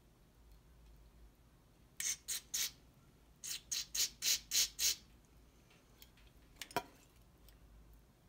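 Aerosol carb and throttle body cleaner squirted through a straw into a lawnmower carburetor's passageways, in about nine short hissing squirts: three, a pause, then six more, flushing the passages to check nothing is clogging them. A short sharp sound follows near the end.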